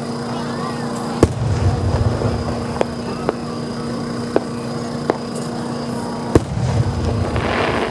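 Aerial fireworks shells bursting: two heavy booms, about a second in and near the end, each followed by a low rumbling echo, with smaller sharp pops between them and a crackling fizz of bursting stars near the end.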